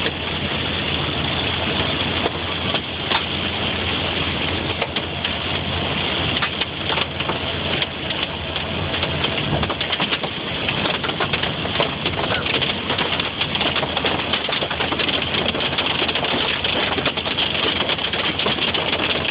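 Hail and rain pelting a car's roof and windshield, heard from inside the cabin as a dense, steady patter of many small hits. The car's engine and road noise run underneath.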